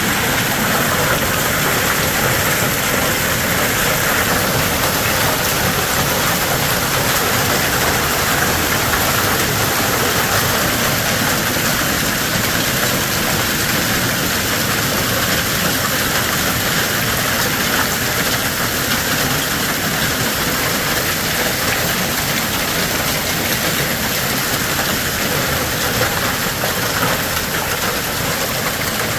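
Hail and rain pelting down in a steady, dense clatter of countless small impacts.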